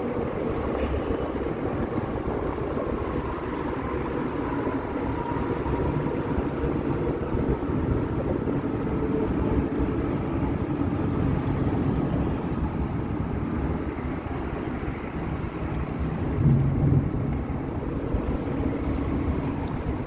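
Steady rumble of road traffic crossing a bridge overhead, swelling briefly louder about 16 seconds in.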